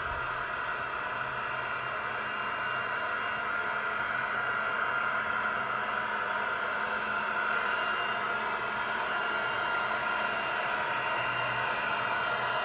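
G-scale model Dash 9 diesel locomotives rolling downgrade in full dynamic braking: a steady whir with a constant hum, growing slightly louder as the train approaches.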